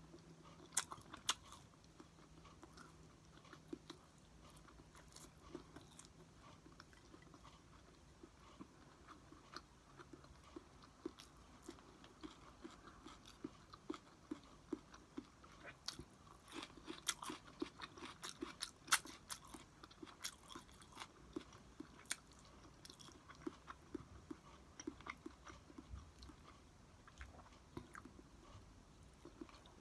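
A person chewing and eating rice close to the microphone: soft wet mouth sounds with scattered sharp clicks and crunchy bites, busiest in the middle.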